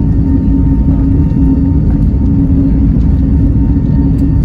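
Airliner's engines and the rumble of its wheels on the runway, heard inside the cabin as the plane rolls fast for takeoff: a loud, steady low rumble with a constant hum.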